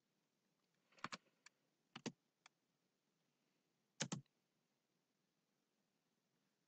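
Short clicks from a computer, mostly in pairs: one pair about a second in, another about two seconds in and a louder one about four seconds in, with fainter single ticks between. Otherwise near silence.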